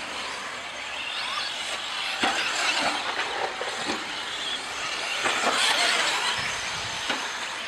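Electric 4WD short-course RC trucks racing on a dirt track: motor whine rising and falling with the throttle over the hiss of tyres on dirt, with a few short knocks.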